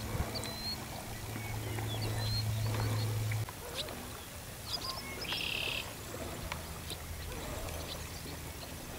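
Marsh ambience: scattered short, high bird chirps and whistles, with a brief buzzy call about five seconds in. Under it runs a low steady hum that cuts off about three and a half seconds in.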